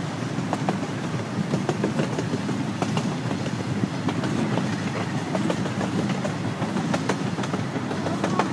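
Amusement-park ride train rolling along its track, heard from aboard: a steady low rumble with irregular clicks and knocks from the wheels and cars.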